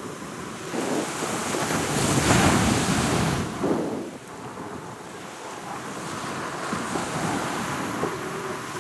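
Waves breaking and washing up on a beach, with wind on the microphone. The rush swells to its loudest two to three seconds in and eases off at about four seconds.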